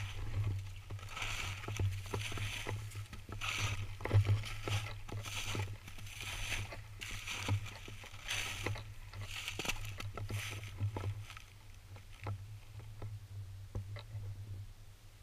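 Footsteps crunching through snow and dry grass at a slow walking pace, about one step a second, quieter and sparser near the end as the walker stops.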